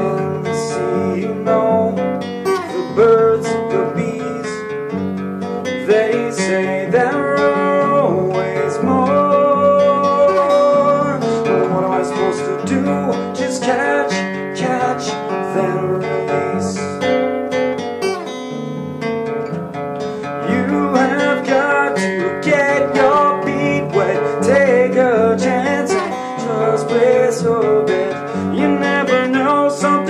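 Steel-string acoustic guitar strummed and picked in a steady rhythm, with a man singing over it.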